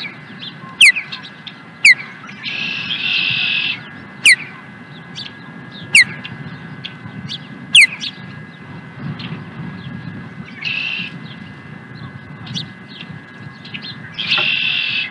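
Ospreys calling on the nest: a series of sharp, downslurred whistles, about six in the first eight seconds, with longer raspy calls around three seconds in, around eleven seconds and near the end.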